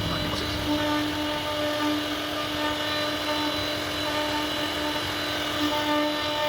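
CNC router spindle running with a steady whine while its bit carves wood, with a continuous cutting hiss.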